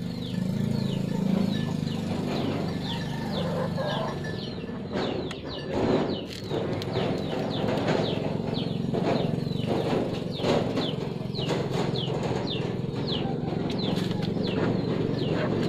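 Birds chirping: a rapid run of short, high, falling chirps, several a second, over a low steady hum, with a few rustling scuffles about midway.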